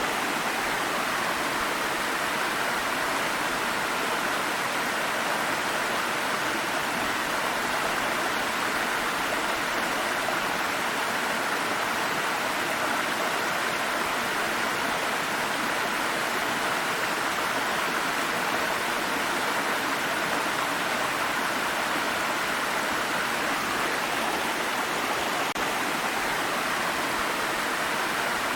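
Water of a small stream rushing and babbling over rocks in a steady, unbroken hiss, brightest in the middle range with little low rumble.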